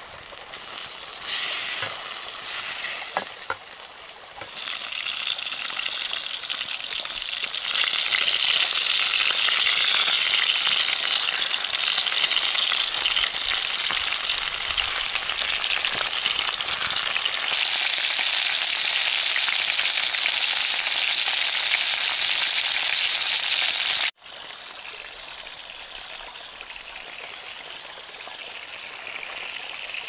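Chicken and potato slices sizzling and frying in a camp frying pan over a wood fire, with two brief louder bursts in the first few seconds. The sizzling builds to a steady hiss, then cuts off abruptly about three quarters of the way through, leaving a quieter steady hiss.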